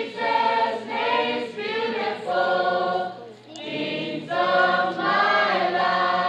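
A group of voices singing together, holding long notes in phrases, with a short break about three and a half seconds in.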